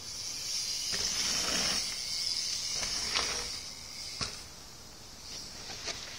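A steady high-pitched insect drone, swelling over the first couple of seconds and easing back. A few sharp clicks and knocks come about one, three, four and six seconds in.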